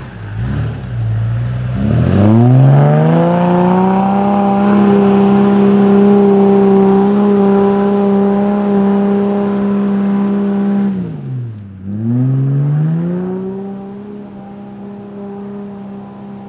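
Toyota Land Cruiser 80 series engine revving up hard about two seconds in and held at high revs under load on a steep hill climb. Near twelve seconds in the revs drop sharply and climb back. The engine grows fainter toward the end as the truck pulls away up the track.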